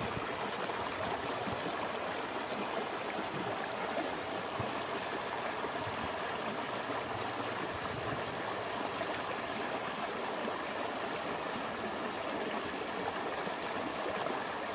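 Shallow river rushing over rocks in a riffle: a steady, even wash of flowing water.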